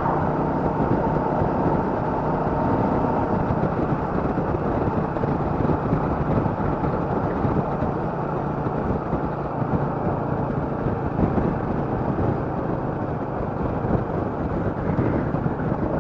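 Royal Enfield Meteor 350's single-cylinder engine running at a steady road speed while being ridden, mixed with steady wind and road rush on the rider's microphone.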